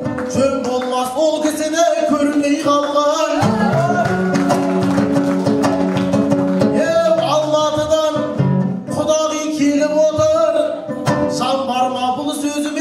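Kazakh akyn singing into a microphone to his own dombra playing, with guests clapping along.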